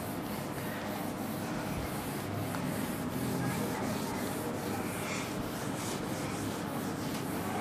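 Cloth wiping marker writing off a whiteboard: a steady rubbing of repeated back-and-forth strokes.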